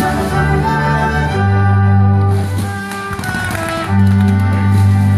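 Orchestra playing sustained chords, with strings and deep low notes, changing every second or two.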